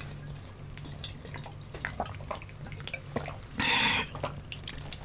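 People drinking from cans: faint swallowing and small mouth clicks over a low steady hum, with a short breathy noise about three and a half seconds in.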